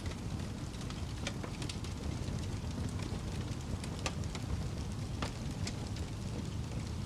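Wood fire burning in a fireplace: a steady low rumble of the flames with sharp crackles and pops scattered through it, several distinct ones a second or so apart.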